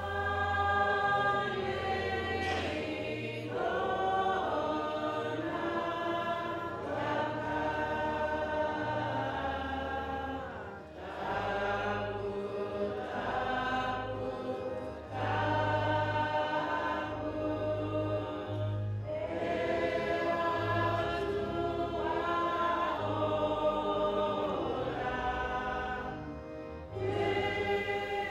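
Church hymn sung by a choir of many voices together, in long phrases with short breaks between lines.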